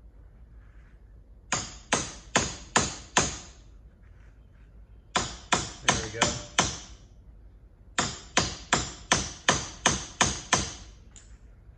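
Hammer tapping a bolt through the Club Car DS golf cart's front leaf spring eye and its new, tight bushing. The taps come in three quick runs, about three sharp taps a second, with the last run the longest.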